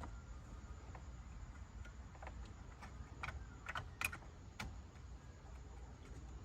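Small, sharp plastic clicks and light rattles of a wiring connector being handled and pushed onto the back of a car's Uconnect radio module, the loudest click about four seconds in.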